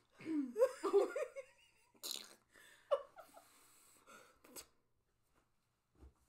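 Two women laughing: giggles in the first second and a half, then breathy exhales and small snickers that die away about five seconds in.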